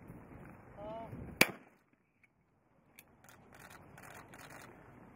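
A single shot from an over-and-under trap shotgun, a sharp loud crack about a second and a half in.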